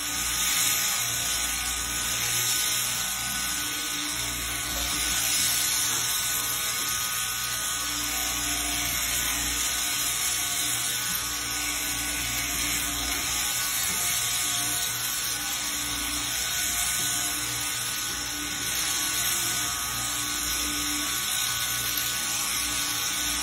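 Electric sheep-shearing handpiece on an overhead drive running steadily as it cuts the fleece off a sheep.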